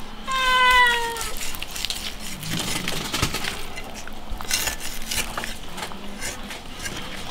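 A cat meows once, about a third of a second in, in a single slightly falling call lasting about a second. Then a cleaver works through a roasted lamb leg, with scattered small clicks and knocks of the blade on the crisp crust and bone.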